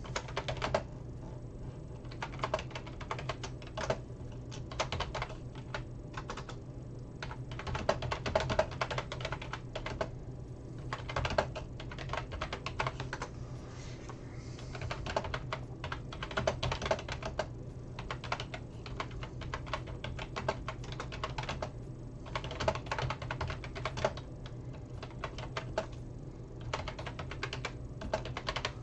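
Rapid, irregular clusters of small hard plastic clicks and taps from hands at work, over a steady low hum.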